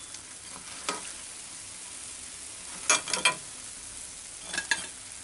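Coriander-leaf pakoras (gram-flour batter fritters) sizzling steadily in hot oil in a kadai. A perforated metal spoon gives short clinks and scrapes against the pan about a second in, around three seconds in and near the end, as the fried fritters are lifted out.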